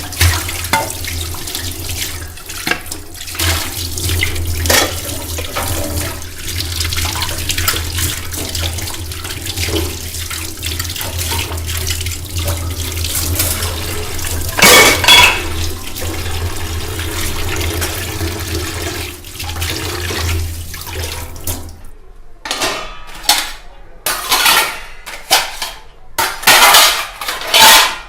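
Water running from a tap into a steel kitchen sink while steel vessels are washed, with scattered clinks and knocks of metal. About 22 seconds in, the running water stops and the steel dishes clatter and clink on their own.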